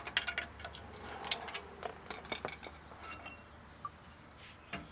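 Light metallic clinks and scrapes of a flathead screwdriver working a brake caliper loose and the caliper being lifted away, a rapid scatter of short clicks that is busiest in the first two and a half seconds and thins out after.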